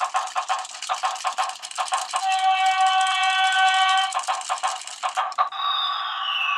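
Plarail Tokai 313 series toy train's battery sound unit and running gear: a rapid plastic clicking rattle, with a steady electronic horn tone of about two seconds sounding about two seconds in. Near the end the clicking stops and a whine slides down in pitch.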